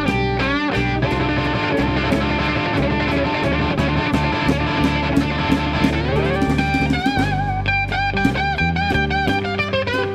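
Live slow blues played instrumentally: an electric guitar solo full of string bends, with a rising slide about six seconds in that leads into wavering, vibrato-held notes, over acoustic guitar and drums.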